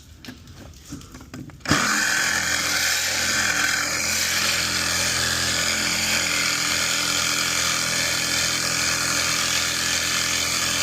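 A Sawzall reciprocating saw starts about two seconds in and runs steadily, cutting through old galvanized steel pipe. The blade is worn out: it is called dead as soon as the saw stops.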